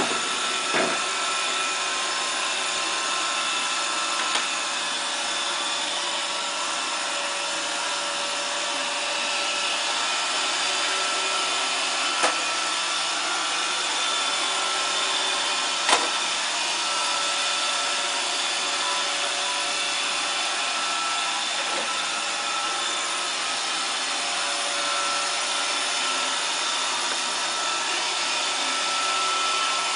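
Roomba robot vacuum running its vacuum and drive motors as it moves across the felt, a steady whir with a faint whine. A few short sharp knocks punctuate it, the loudest about 16 seconds in.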